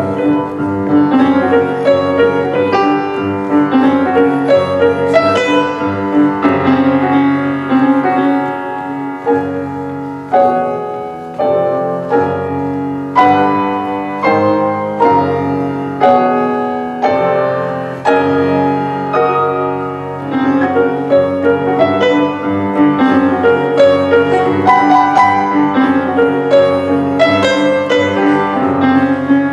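Solo jazz piano on a grand piano: a steady flow of struck chords and runs, thinning briefly about ten seconds in before filling out again.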